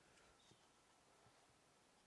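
Near silence: faint room tone, with one faint click about half a second in.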